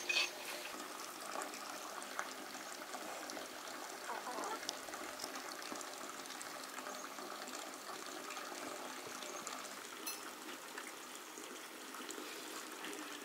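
Faint, steady sound of water, with a few small clicks scattered through it.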